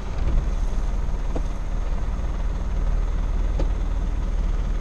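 Mazda T4000 tipper truck's engine running steadily, a low rumble heard from inside the cab, with two faint short squeaks in the middle.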